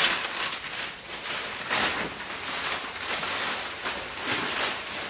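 Plastic stretch wrap crinkling and rustling as it is pulled off a shipping crate, getting louder in several short surges.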